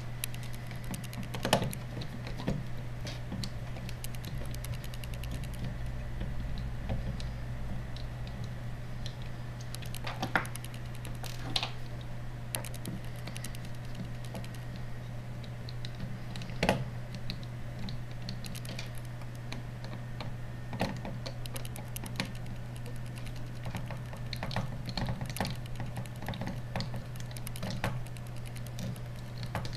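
Plastic parts of a BlackBerry Curve 8520 phone handled and pressed together by hand: irregular small clicks, taps and snaps of the keyboard, frame and housing pieces on a tabletop, a few of them louder, over a steady low hum.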